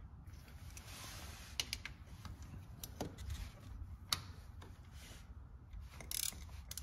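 Ratchet wrench with an 8 mm socket loosening bolts on an ATV's pull-start cover: a few scattered sharp metal clicks over a faint rustle of handling.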